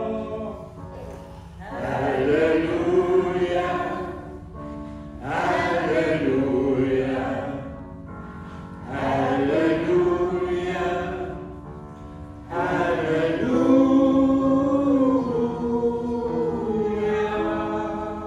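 A small mixed choir of men and women singing a Danish song together, in about four long phrases with short breaths between them.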